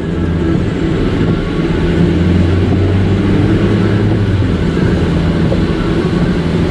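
Steady road and engine noise inside a moving car's cabin: a continuous low hum under an even rush.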